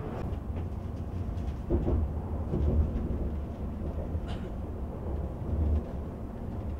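Low, steady rumble of an E5 series Shinkansen train running, heard inside the passenger cabin, with a few soft knocks.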